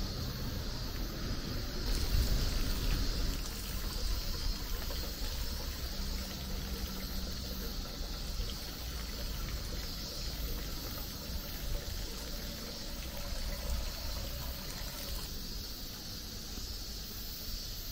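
Water running and trickling steadily, over a steady low rumble.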